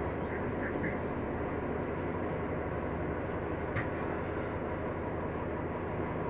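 Steady rumble of a city bus heard from inside the passenger cabin, with one brief click a little under four seconds in.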